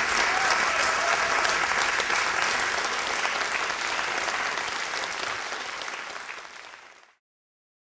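Audience applauding, a dense patter of many hands clapping. It fades away and cuts off abruptly about seven seconds in.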